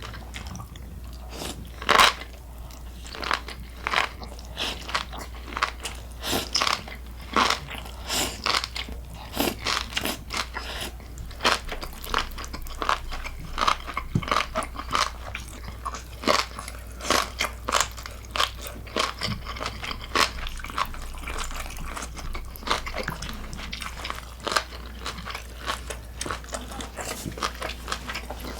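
Close-miked eating: crunchy food being bitten and chewed, a rapid, irregular series of crisp crunches and smacks.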